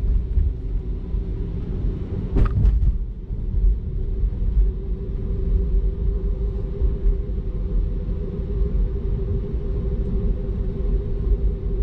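Low road and tyre rumble inside a moving Tesla electric car's cabin, with a steady hum throughout and a single brief knock about two and a half seconds in.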